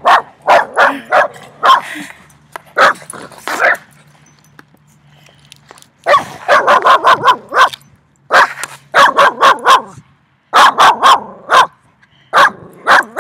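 Three dogs barking very loud in quick, overlapping bursts, with a pause of about two seconds partway through before the barking starts up again.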